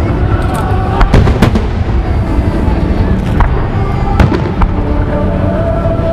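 Fireworks shells bursting in a rapid string of sharp bangs over a continuous rumble, with music playing underneath.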